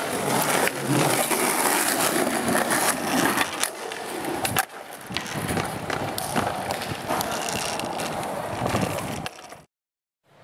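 Skateboard wheels rolling over stone paving tiles, a loud continuous rumble broken by a few sharp clacks of the board. The sound cuts out abruptly to silence near the end.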